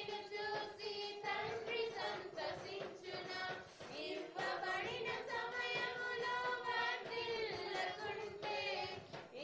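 A congregation singing a Telugu Christian hymn in high voices, drawing out long held notes between short breaths.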